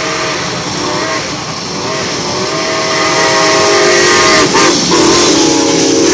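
Reading & Northern 425, a 4-6-2 steam locomotive, passing close at speed: its chime whistle blows in long blasts with brief breaks, over loud steam exhaust and hiss that grows as it comes alongside.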